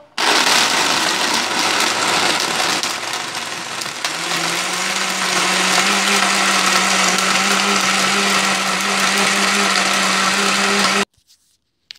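Countertop blender running at full power, crushing ice cubes, banana and ice cream into a chocolate milkshake. Its motor note steps up in pitch about four seconds in as the mix turns smooth, and it switches off abruptly about a second before the end.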